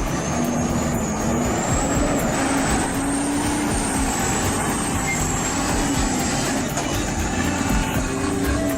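Heavy log truck's engine running under load on a steep climb, its note wavering up and down, with a high whine above it.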